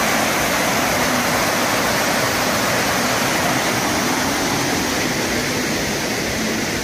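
Storm runoff pouring down stone steps after a heavy downpour, a loud, steady rush of water.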